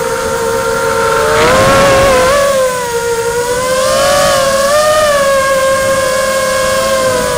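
Drone's electric motors and propellers whining, heard from the onboard camera, with several steady tones. The pitch rises briefly about a second and a half in and again around four to five seconds, as the throttle is pushed.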